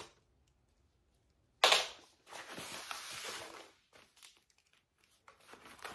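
Scissors snipping through a tough plastic zip tie on furniture packaging: a sharp snap about one and a half seconds in, then plastic wrapping rustling and crinkling for a second or so, with a few faint ticks near the end.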